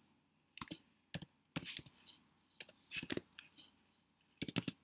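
Typing on a computer keyboard: sharp keystroke clicks in short bursts of a few keys, with pauses between them, as a terminal command is typed out.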